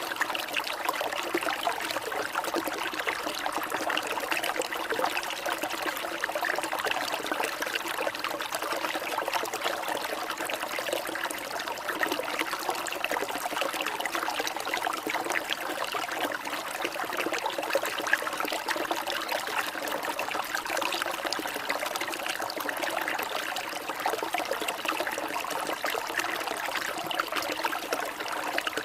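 Water trickling and splashing steadily without a break.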